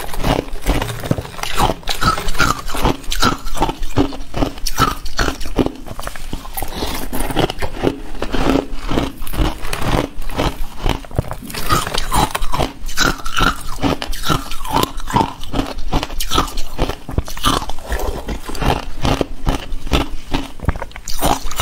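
Ice being bitten and chewed close to the microphone: loud, crisp crunches, several a second, in a steady run.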